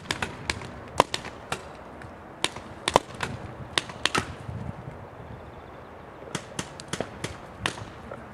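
Paintball markers firing: irregular sharp pops, single shots and quick runs of two or three.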